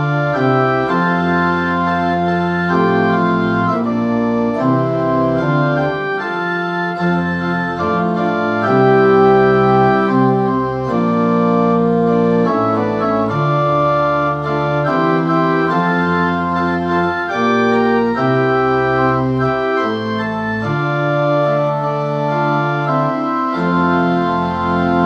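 Church organ played on a three-manual console: held chords that change every second or so.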